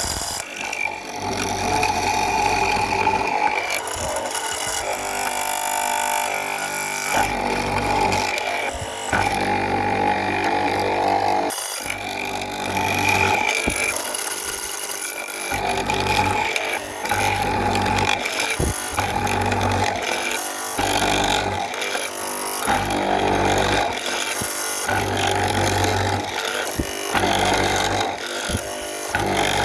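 A power tool running and cutting into wood to hollow it out. Its sound shifts continually as it bites into the wood and eases off, with a few brief dips.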